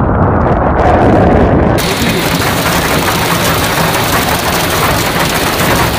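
A low rumbling noise, then about two seconds in an abrupt change to heavy hail pelting a vehicle: a dense, continuous clatter of hailstones striking the body and side mirror.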